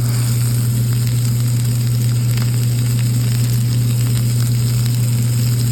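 Beef burger patty and chicken thighs sizzling in bacon grease on a flat-top griddle, a steady frying hiss with small popping crackles, over a constant low hum.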